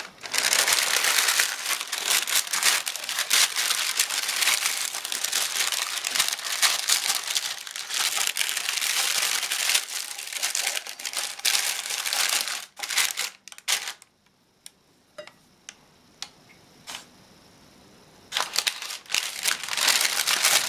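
Baking paper crinkling and rustling as it is pressed and folded into a baking tin. The crinkling is nearly continuous for the first twelve seconds, drops to a few small rustles, and picks up again near the end.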